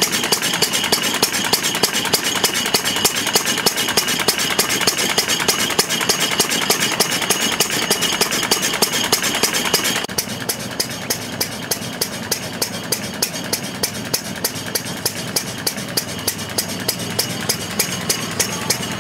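Fairbanks Morse 2 HP Type T throttling-governed stationary engine running under load, driving its direct-connected 32-volt generator, with an even, regular firing beat. The level drops a little about halfway through.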